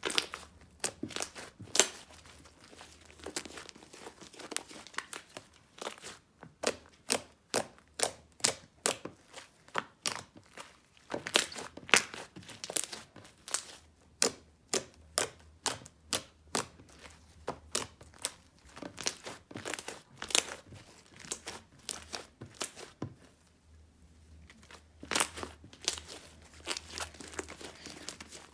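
Green crunchy slime made with modelling foam full of tiny foam beads, kneaded and squeezed by hand, crackling and popping in quick irregular clicks. There is a brief lull near the end before the crackling starts again.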